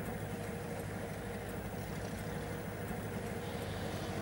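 Steady low rumble of a running motor vehicle, with a faint steady hum above it and no separate events.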